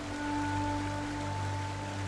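Soft background music: long held melody notes over a steady low drone.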